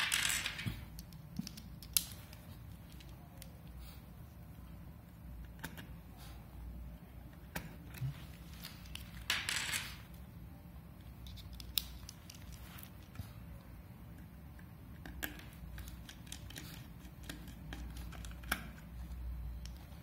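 Light clicks and short metallic rasps of a precision screwdriver being handled and fitted with its shaft, with a brief rasp at the start and another about nine seconds in.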